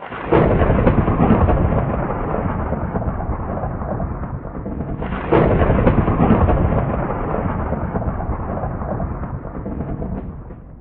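Two thunderclaps about five seconds apart, each a sudden crack followed by a long rumble that slowly fades. It is an added thunder sound effect that starts and stops out of dead silence.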